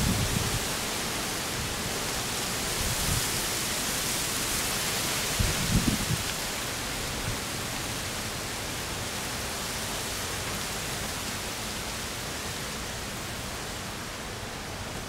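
Steady outdoor hiss of weather noise, with brief low rumbles at the start and about six seconds in, easing slightly toward the end.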